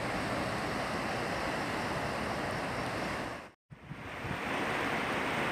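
Small waves washing onto a sandy beach, a steady noise of surf that cuts out abruptly for a moment about three and a half seconds in, then resumes.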